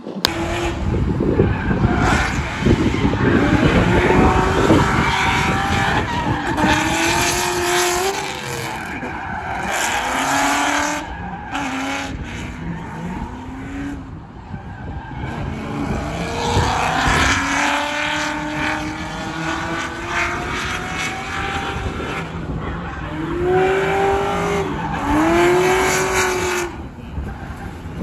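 Drift car's V8 engine revving up and down through a drift run, with tires squealing and skidding throughout, and two sharp rev swells near the end. The car is plausibly the 2001 Ford Mustang GT with its 4.6-litre two-valve V8 and long-tube headers.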